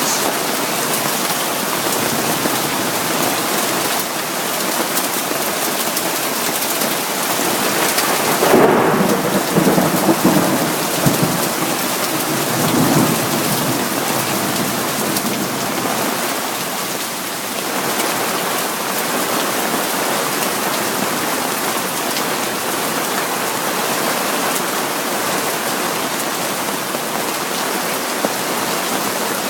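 Hail and rain falling hard on surfaces in a steady dense patter, with a rumble of thunder from about eight and a half seconds in, lasting several seconds.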